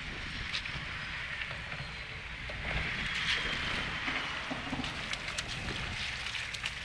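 Wind buffeting the microphone over small waves lapping against the seawall, with scattered short clicks in the second half.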